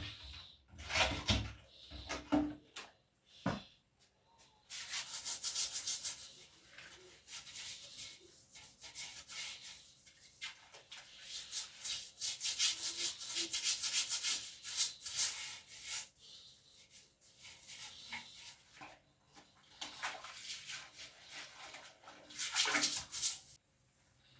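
Irregular close-up rubbing strokes, coming in bursts with short pauses, with a few soft knocks in the first few seconds.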